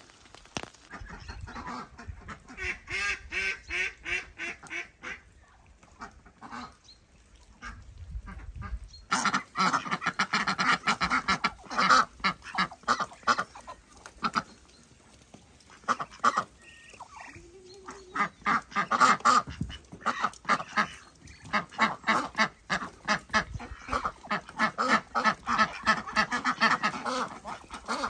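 A flock of domestic ducks quacking in repeated bouts of rapid calls, with short lulls between the bouts.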